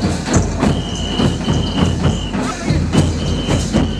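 Barrel drums beaten in a fast, driving dance rhythm, with a pea whistle blown in a series of long, shrill blasts over it.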